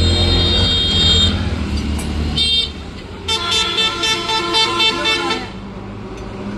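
Road traffic with vehicle horns honking over a low engine rumble: a horn blast during the first second or so, a short toot about two seconds in, and a longer blast from about three to five and a half seconds.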